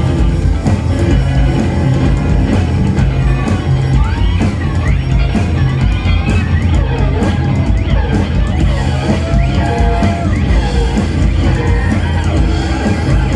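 Live rock band playing a loud, noisy instrumental passage: an electric guitar worked with a drumstick against its strings gives sliding, wavering pitches over drums and a heavy low end. A held tone sounds briefly past the middle.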